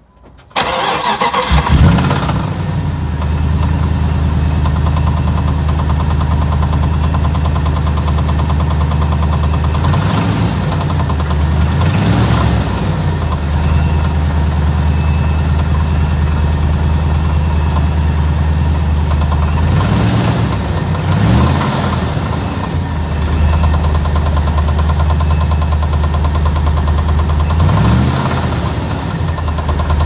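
Vehicle engine starting about half a second in, then idling, revved briefly a few times. It runs with a knock that the owner cannot place between rod knock and the torque converter.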